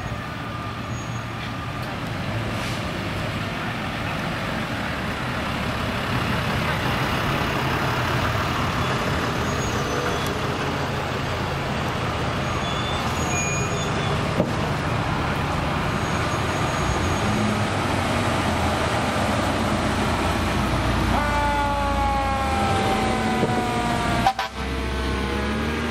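Fire trucks rolling slowly past with their engines running. In the last few seconds a siren sounds, falling slowly in pitch, with a short sharp burst just before the end.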